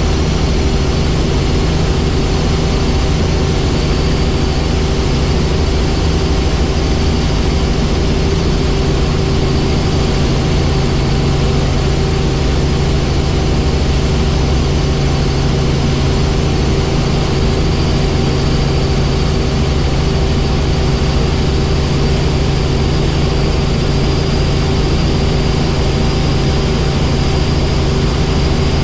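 Helicopter in flight, heard from inside the cabin: a steady drone from the engine and rotors with a high whine over it.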